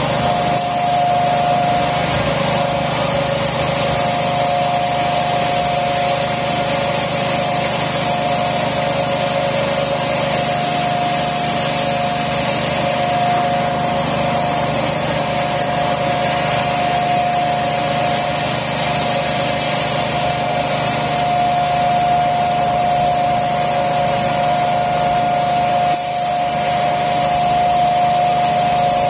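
Polystyrene concrete block production line machinery running steadily: a constant whine with two held tones over a strong hiss, without distinct knocks or clanks.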